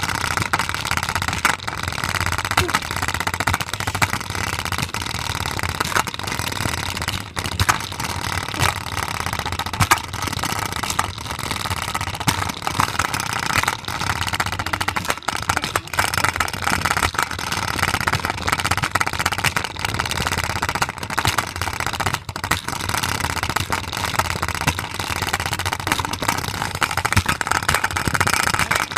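A spinner carrying a Play-doh container, running with a continuous rapid rattling and banging. The container shakes because the Play-doh inside is off balance.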